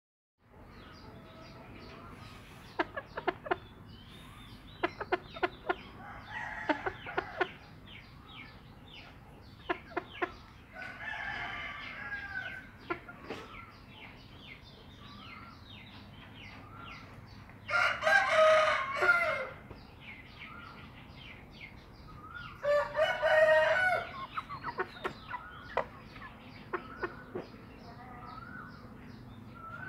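Game chickens clucking in short bursts, then two loud crows, each about a second and a half long, a little past halfway and a few seconds later.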